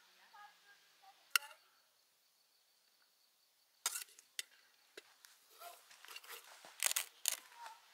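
A metal spoon clinking and scraping against a stainless steel pot and a metal plate as peas are scooped out and served. There is one clink early, a few separate clinks partway through, then a quicker run of clinks and scrapes near the end.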